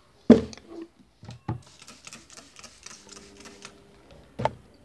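Plastic bottles knocking on a wooden cabinet top as they are lifted off, then a hissing spray of cleaner squirted in quick pumps for about two seconds, and one more knock near the end.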